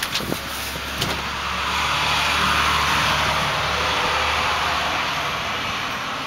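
A motor vehicle driving past on the road: its engine hum and tyre noise swell to their loudest about two and a half seconds in, then fade.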